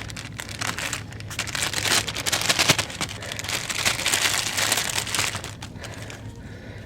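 Plastic packaging crinkling and rustling as it is handled, a dense crackle that fades out about five and a half seconds in.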